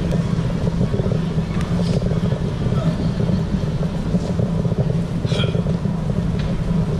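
Steady low rumble of outdoor city street ambience, with faint voices passing briefly.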